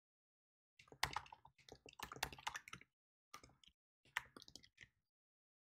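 Typing on a computer keyboard: three quick runs of keystrokes entering a line of code, with short pauses between them.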